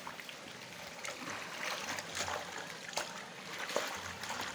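Rainwater being drained: water sloshing and trickling, broken by irregular splashes.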